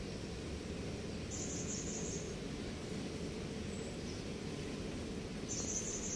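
Outdoor background ambience: a steady low rumble, with an insect's high-pitched buzzing trill sounding twice, each for about a second, about a second in and again near the end.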